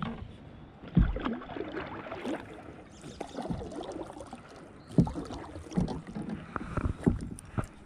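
Knocks and bumps on a kayak: a sharp low thud about a second in and several more in the last three seconds, with rustling between them.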